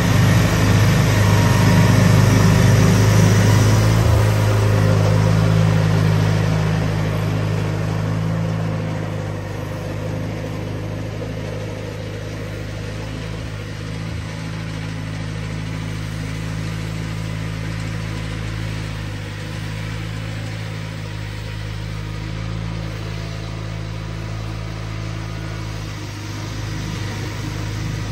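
1992 John Deere 318 garden tractor's Onan twin-cylinder engine running steadily while driving its front-mounted snowblower. The sound grows fainter over the first ten seconds as the tractor moves away, then holds steady.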